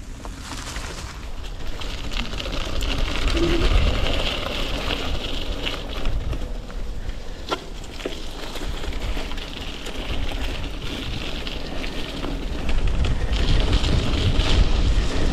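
Mountain bike riding along a gravel and dirt trail, its tyres rolling with a steady crackle of grit, under a low wind rumble on the handlebar microphone that swells about four seconds in and again near the end.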